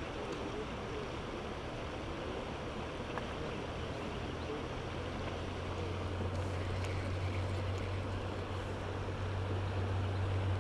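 Steady rush of flowing stream water, with a low hum that grows louder from about halfway.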